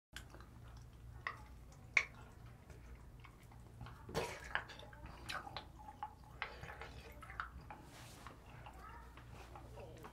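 Faint clinks of a metal ladle and cutlery against a pot and bowls, with soft sloshing of soup broth as it is stirred, over a low steady hum. The sharpest clicks come about 2 and 4 seconds in.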